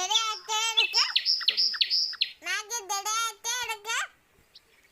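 Bird calls: repeated warbling phrases with a wavering pitch, about a second each, with a quick run of short, high, falling chirps between the first two.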